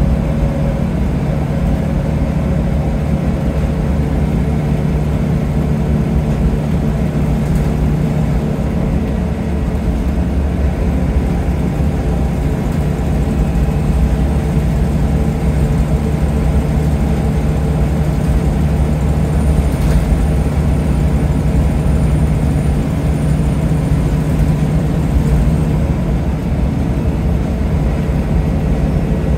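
Scania L94UB single-deck bus heard from on board while driving, its diesel engine giving a steady low drone over continuous road noise.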